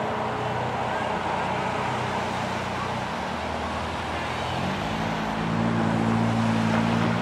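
Norfolk Southern diesel locomotive engine running as the locomotive approaches. About two-thirds of the way in, the engine note steps up to a higher, louder steady pitch as the throttle is opened.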